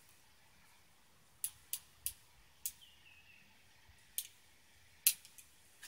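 Sharp metallic clicks from an 1889 Bodeo revolver's action being worked by hand: about six separate clicks at uneven intervals, the loudest near the end.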